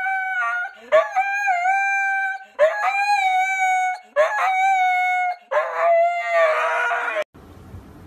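A husky howling in a string of drawn-out calls, one about every second and a half. Each starts with a quick upward swoop and then holds a fairly steady pitch. The last howl breaks into a rough, hoarse sound and cuts off suddenly about seven seconds in.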